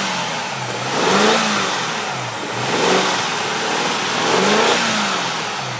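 BMW 550i's V8 engine being revved three times, its pitch rising and falling with each rev; the engine has a misfire.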